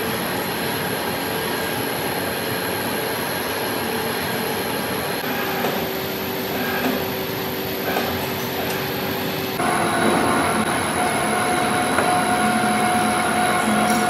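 Metalworking machine tool running steadily in a machine shop, a constant mechanical noise with held high-pitched tones; the tones shift abruptly twice, about five seconds in and again about nine and a half seconds in.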